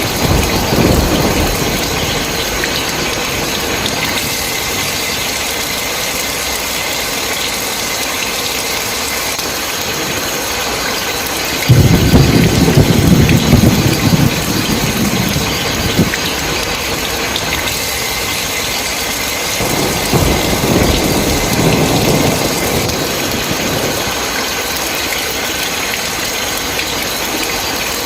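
Steady heavy rain with thunder. A loud rumble breaks in suddenly a little before halfway and lasts about four seconds, and a weaker rumble follows later.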